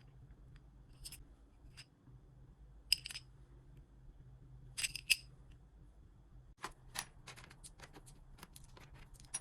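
Bracelets being handled and packed: a few light, bright clinks spaced a second or two apart, then a quicker run of small clicks near the end.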